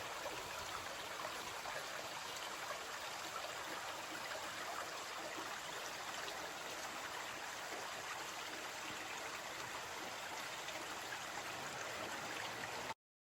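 A fast-flowing stream rushing steadily, which cuts off abruptly shortly before the end.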